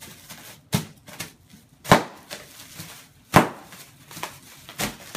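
Toy snap poppers (bang snaps) cracking on the floor: four sharp pops about a second apart, the second the loudest, with fainter snaps in between.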